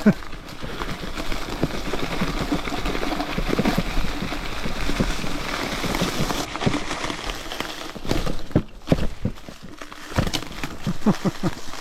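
Bicycle riding over a rough dirt trail: continuous tyre noise with many irregular clicks and rattles from the bike, easing off about eight seconds in.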